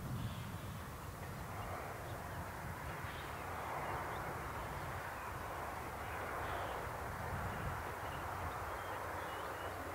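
BR Standard Class 4MT tank locomotive and its coaches running on the line at a distance: a low rumble and a steady hiss that swell a few times. Birds call faintly over it.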